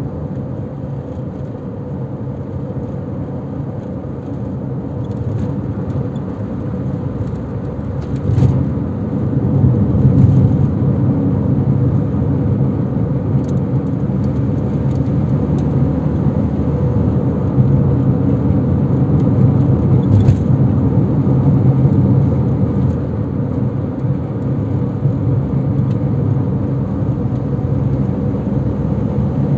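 A car's engine and tyre road noise while driving at steady speed, heard from inside the car; it gets louder from about eight seconds in.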